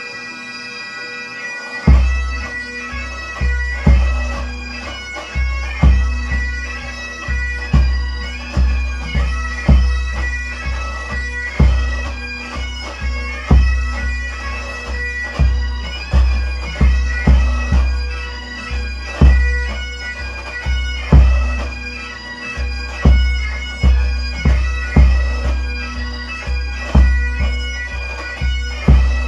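Highland pipe band bass drum struck with felt flourishing mallets, deep booming strokes roughly once a second with extra beats between, coming in about two seconds in. Under it, bagpipes play a tune over their steady drones.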